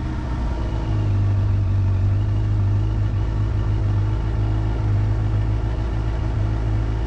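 Suzuki GSX-R750's inline-four engine idling steadily just after a cold start, with its stock air filter still in.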